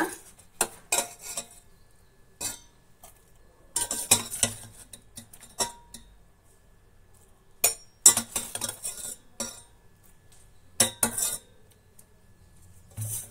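Perforated steel skimmer clinking and scraping against stainless-steel pots while scooping boiled soya chunks from one pot into another. The clinks come in several irregular clusters with quiet gaps between them.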